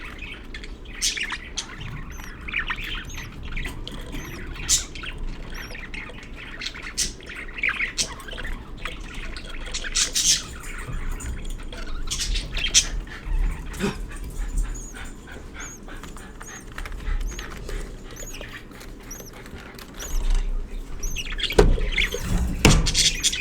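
Budgerigars chirping, with many short clicks and taps mixed in and a few louder thuds near the end.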